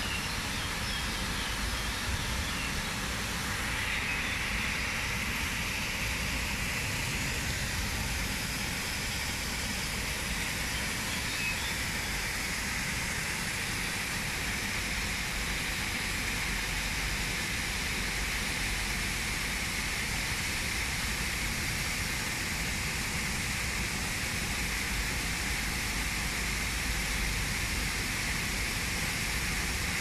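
Small waterfall splashing into a pond, a steady rushing noise.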